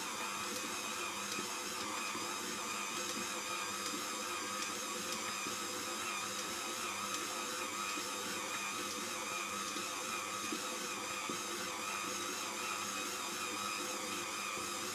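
KitchenAid stand mixer running steadily, its dough hook kneading a soft yeast dough in the steel bowl: an even motor whir with several held tones.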